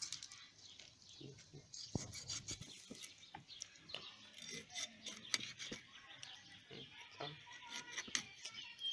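Knife cutting raw chicken into pieces against a wooden block: faint, irregular clicks and taps of the blade on the wood, with soft rubbing of the meat.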